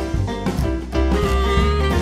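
Upbeat instrumental music with a steady beat and held melody notes.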